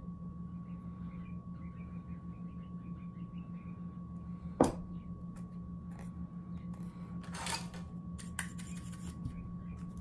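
Small workbench handling noises over a steady low hum: one sharp knock about halfway through, then a brief scrape and a few light clicks near the end.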